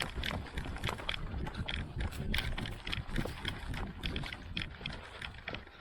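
Footsteps of a person moving briskly on outdoor ground, about three steps a second, each step a short crunch, over a steady low rumble.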